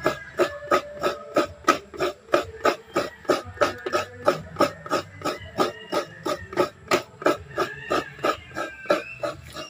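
Background music with a steady beat, about three beats a second, under a simple melody.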